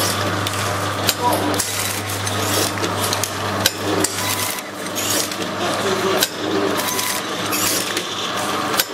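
Automatic liquid sachet packing machine running, with repeated sharp metallic clicks and knocks as it seals and cuts sachets, over a low steady hum that stops about halfway through.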